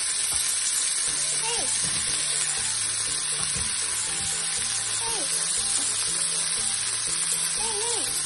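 Bacon, sliced long green onion and shimeji mushrooms sizzling as they are stir-fried in a frying pan, a steady even hiss.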